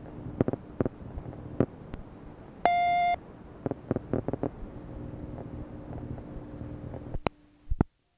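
Answering-machine cassette playback: phone-line hum and hiss with scattered sharp clicks, and one short answering-machine beep, a steady tone lasting about half a second, a little over two and a half seconds in, between recorded messages. Near the end the recording drops out with a click.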